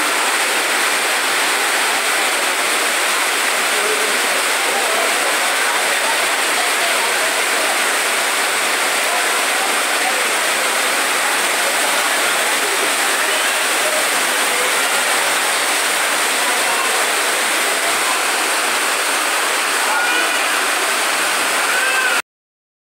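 Torrential rain pouring down and floodwater rushing through the street: a loud, steady rush of water, with faint voices under it. It cuts off suddenly near the end.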